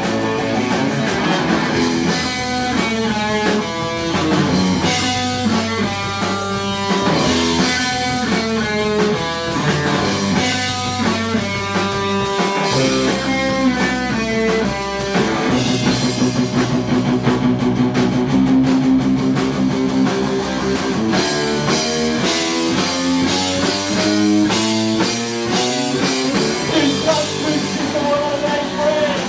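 Live rock band playing an instrumental break: electric guitar playing a melody over bass and drum kit.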